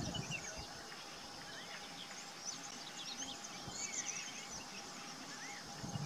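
Background birdsong: many small birds chirping in short, quick rising and falling notes, with a faint steady tone underneath.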